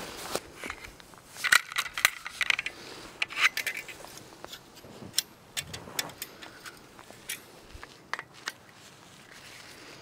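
Agawa Canyon Boreal21 folding bow saw being unfolded and set up: its metal frame and blade clink and rattle in a quick run of sharp clicks in the first few seconds, then a few scattered clicks as it locks into shape.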